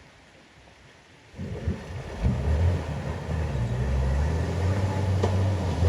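A four-wheel-drive vehicle's engine comes in suddenly about a second and a half in and works steadily under load, getting louder, with a few sharp knocks.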